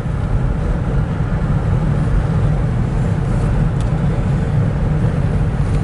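Steady engine and road rumble heard from inside a moving car's cabin.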